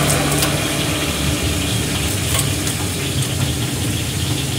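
A motor vehicle engine idling: a steady low hum under a noisy wash, with a few faint clicks.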